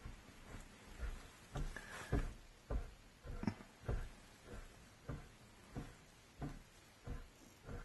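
Moose tongue licking the outside of a truck in steady, rhythmic strokes, about one every half second or so, heard from inside the cab. The moose are licking mud and road salt off the vehicle.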